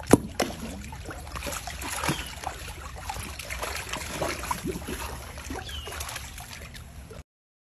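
Alligator jaws snapping shut on food with a sharp clap at the start, then a second smaller clap, followed by water sloshing and splashing as several alligators jostle at the edge of the pond.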